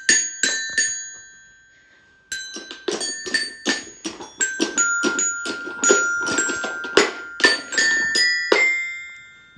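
Toy xylophone with metal bars struck with plastic mallets by small children, random notes ringing on after each strike. A few taps, a lull about a second in, then a quick, uneven run of strikes that stops near the end.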